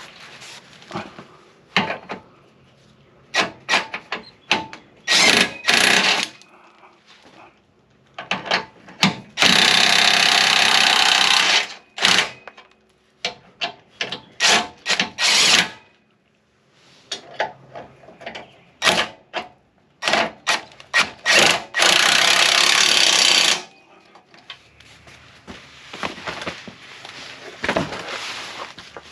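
Power impact wrench tightening the mounting bolts of a rear bumper. It fires in many short bursts, with two longer runs of about two to three seconds each.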